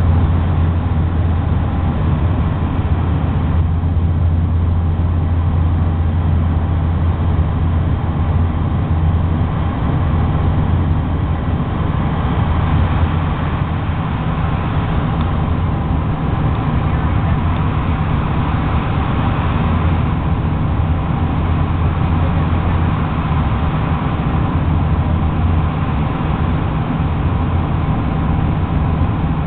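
Bombardier Q400's Pratt & Whitney PW150A turboprops and six-blade propellers giving a steady low drone with rushing airflow, heard inside the cabin on approach with the landing gear extended.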